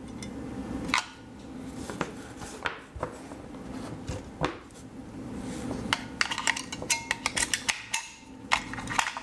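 Scattered plastic clicks and taps as an air-conditioner remote's battery compartment is worked with its battery lid to lever the batteries out. The clicks come thicker and faster in the second half.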